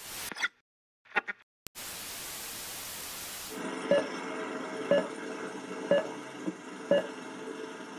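Sound effects for an old TV and film-countdown leader: a few brief clicks, then an even hiss of static for about two seconds, then a steady whirr with a short beep once every second as the countdown runs.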